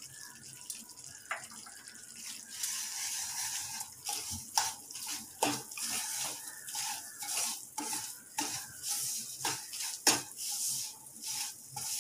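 Wooden spatula scraping and stirring ghee-roasted wheat flour and sugar in a pan, in short strokes about one to two a second. A steady hiss comes in about two and a half seconds in.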